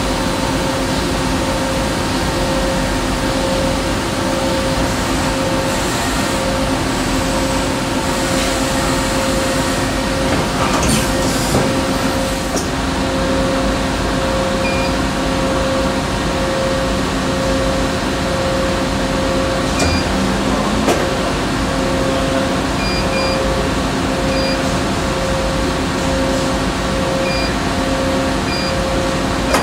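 CNC lathe running under power: a steady machine hum with a strong held tone. Short high beeps sound several times in the second half.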